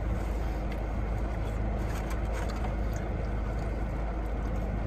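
Chevrolet Cruze running at idle while parked, heard inside the cabin as a steady low hum, with a few faint clicks.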